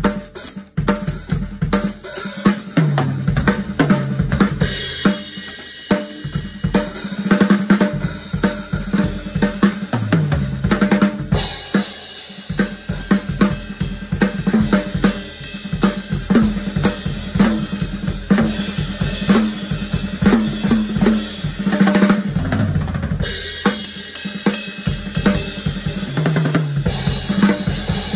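Drum kit solo played with sticks on a multi-tom kit: fast, continuous strokes on snare and toms with bass drum underneath, with several fills that run down the toms from high to low. Cymbals ring in and wash over the playing about eleven seconds in and again near the end.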